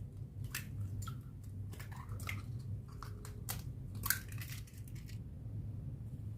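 A run of short, irregular crackling and scraping sounds from food being handled for a lemon cake, over a steady low hum; the crackles stop about five seconds in.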